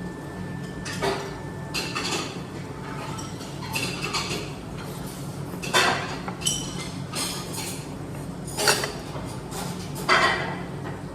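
Dishes and cutlery clinking and knocking every second or so, some clinks ringing briefly, over a steady low background hum.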